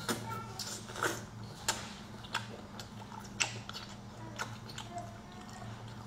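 A person chewing sea snail (conch) meat dipped in chili sauce: irregular wet mouth clicks and smacks, roughly one a second, over a faint steady hum.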